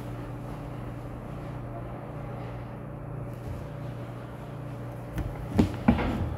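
A steady low hum, with a few sharp knocks near the end, the last two loudest and close together.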